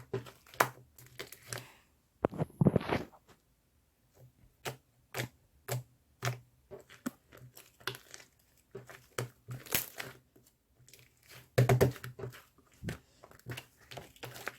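Irregular crinkling and crackling of something being handled, in short bursts with brief pauses, louder around two and a half seconds in and again near twelve seconds.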